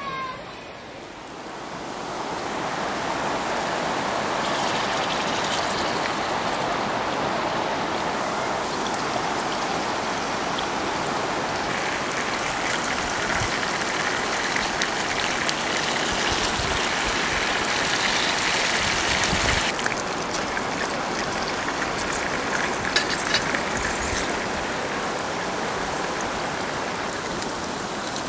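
Steady rushing water, a dense hiss that swells up over the first couple of seconds and then holds, brighter for a stretch in the middle.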